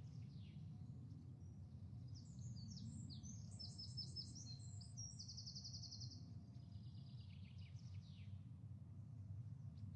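Recorded birdsong, with quick high chirps and trills through the middle, over a low steady hum. It is the kind of birdsong track that Big Brother's live feed played in place of the house sound to mute the housemates.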